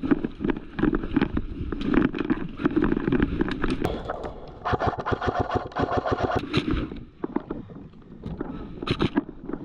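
Airsoft rifles firing in rapid bursts: a fast run of sharp cracks and clicks, with a steady pitched tone for about two seconds in the middle.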